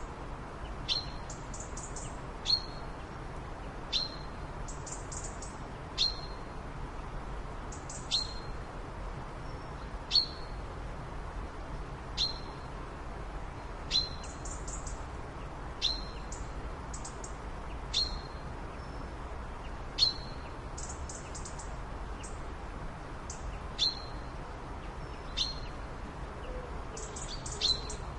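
Bird chirping: a short, sharp call repeats about every two seconds, with little clusters of higher, thinner chirps in between, over a steady low background noise.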